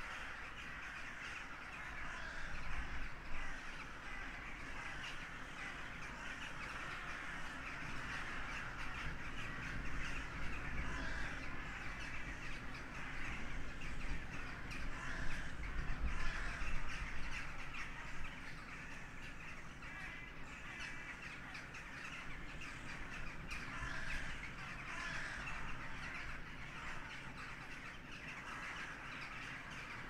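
A huge flock of crows cawing, a dense chorus of many overlapping calls. Wind rumbles on the microphone underneath, rising in gusts a few times.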